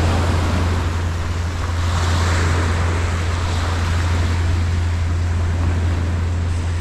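Small waves washing onto a sand-and-pebble beach, swelling a couple of seconds in, over a steady low rumble.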